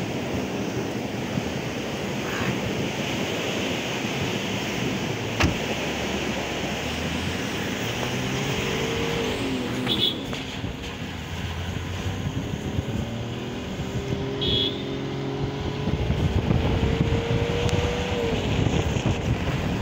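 Vehicle driving on a wet road, heard from inside the cab: steady tyre and road noise under the engine's hum, whose pitch glides up and down a couple of times in the second half. A single knock about five seconds in.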